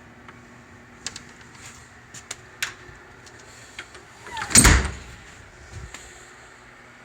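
A few light clicks and knocks, then one loud heavy thump about four and a half seconds in, followed by a couple of softer knocks: handling noise from work on the vehicle.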